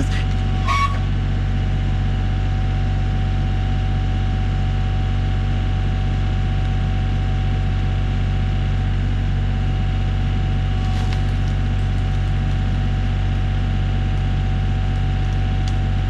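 Kioti 3510 compact tractor's diesel engine running steadily at a constant speed, driving the hydraulics of a tractor-mounted log splitter while a round is split. A faint short crackle comes about eleven seconds in.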